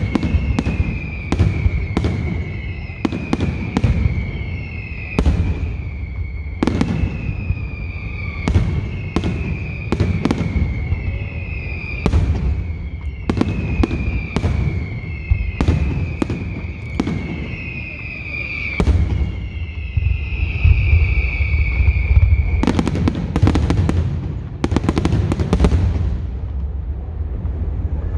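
Fireworks display: a steady run of whistling shells, each a short whistle falling slightly in pitch, among sharp bangs over a low rumble. About 23 seconds in, a quick volley of crackling reports follows.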